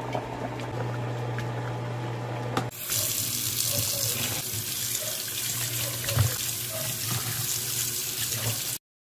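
A pot of soup bubbling at a boil with a steady low hum beneath it, then, a little under three seconds in, tap water running hard into a metal basin as whole fish are rinsed and rubbed by hand. The running water cuts off abruptly just before the end.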